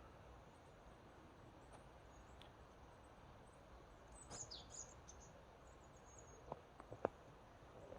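Near silence, with a faint, high bird call about four seconds in and a few faint clicks near the end.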